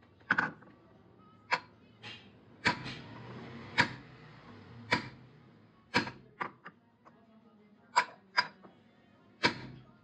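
Hammer blows on a steel drift, driving a motorcycle crankpin into its flywheel half on a steel plate: about a dozen sharp, ringing metal strikes at uneven intervals, some in quick pairs.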